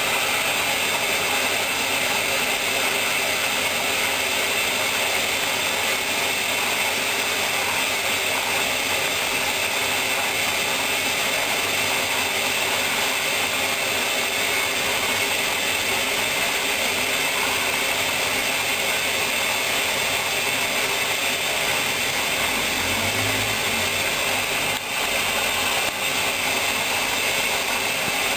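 Hoover washing machine running its wool programme, a steady mechanical whirr that barely changes, with a brief dip near the end.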